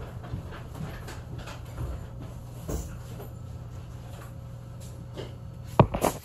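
Steady low hum inside a stopped Chikuhō Electric Railway 3000-series tram, with a few faint knocks and a sharp knock near the end.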